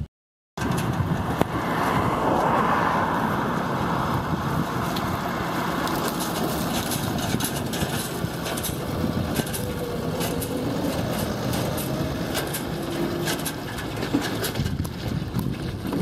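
Fendt 826 Vario tractor running steadily as it drives past towing a loaded Arcusin bale autostacker.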